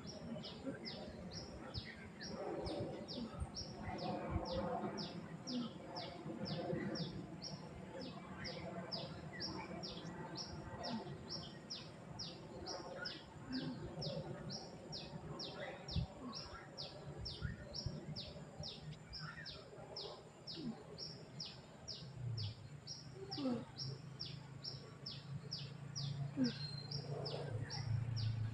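A bird calling over and over, a short high chirp that drops in pitch, repeated about twice a second without a break. Faint distant voices sit underneath, and a low hum comes in near the end.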